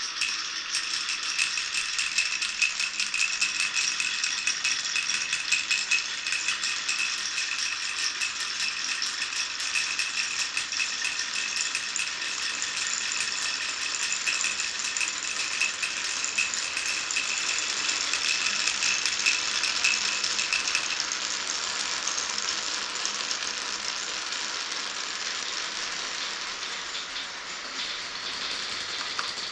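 Many glass marbles rolling and clicking against each other and the track of a wooden marble run, a dense continuous clatter. A steady high ringing in it drops out about two-thirds of the way through while the clatter goes on.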